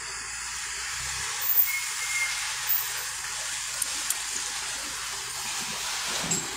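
A steady, even hiss, with a few faint clicks near the middle.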